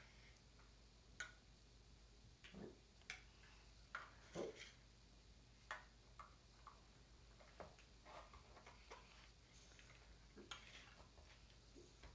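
Faint, scattered clicks and knocks of large plastic toy building blocks being picked up, set down and pressed together, about one every second or so at irregular intervals.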